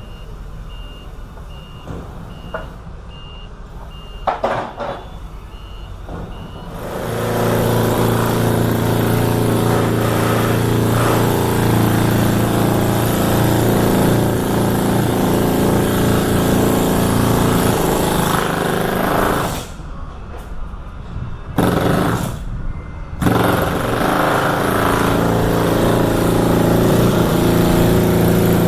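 A repeated high electronic beep, then a refrigerated trailer's reefer unit engine starts about seven seconds in and runs steadily. About twenty seconds in it cuts out, catches briefly, and runs again a few seconds later.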